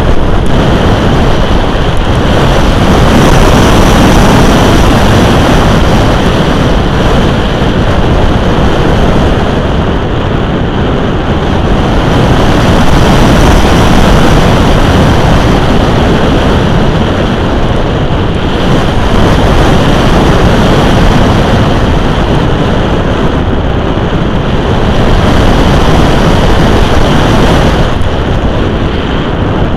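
Airflow rushing over the microphone of an RC glider's onboard camera in flight, a loud, steady buffeting that swells and eases every several seconds.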